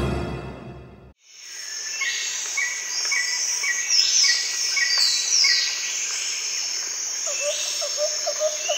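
Scary music fades out in the first second. Then a steady chorus of insects comes in with repeated bird chirps, about two a second, and a few falling whistles, and it cuts off abruptly at the end.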